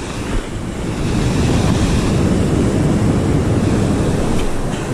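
Ocean surf breaking and washing up the shore close by, swelling about a second in, with wind buffeting the microphone.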